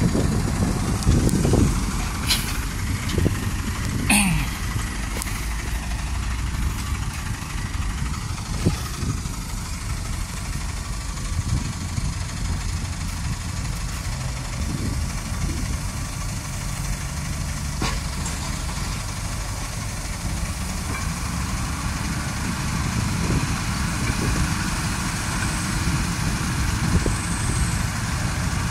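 Diesel engines of an excavator and a dump truck running with a steady low rumble while the excavator loads soil into the truck's steel bed. There are two sharp clanks, about two and four seconds in.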